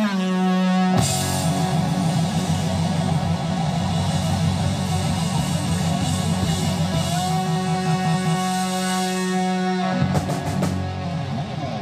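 Loud rock music with electric guitar and drums: a single held note, then the full band comes in about a second in with held chords, which break off near the end.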